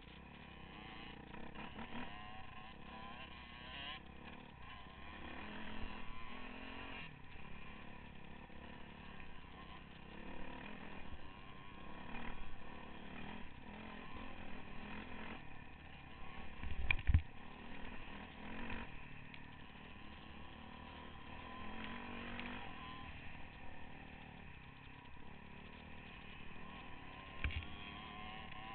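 Dirt bike engine running and revving up and down as it is ridden over a rough dirt trail, heard from on board the bike, with a loud thump about two thirds of the way through.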